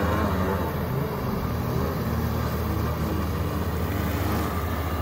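An 85 hp jet outboard on an aluminium jon boat running at speed across the water, heard from the shore as a steady drone through its open, unmuffled exhaust. The drone is a little fainter after the first second as the boat moves away.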